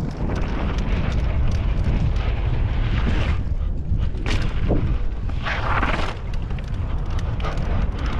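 Wind rumbling on the microphone of a camera riding along on a mountain bike. Mountain bike tyres on dirt rush and hiss several times, and short sharp clicks and rattles come from the bike over the bumps.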